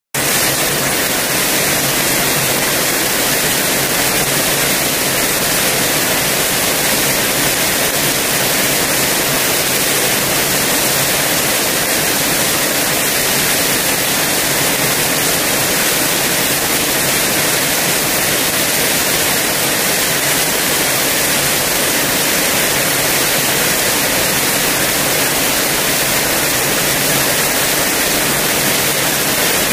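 Heavy downpour: rain falling hard in a steady, loud hiss.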